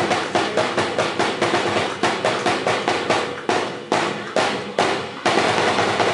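Drumming for a Sinulog dance: loud, rapid drum beats, about four to five a second. Between about three and a half and five seconds in, the beat thins to a few spaced hits, then the full rapid beat comes back in.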